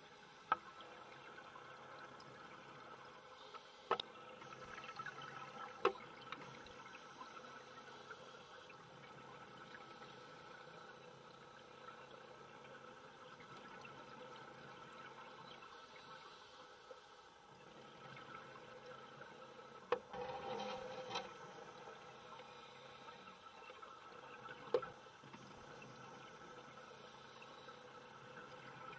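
Underwater sound beside working scuba divers: a faint steady hum with thin steady tones, a few bubbly surges of regulator exhaust, and about six sharp clicks spread through.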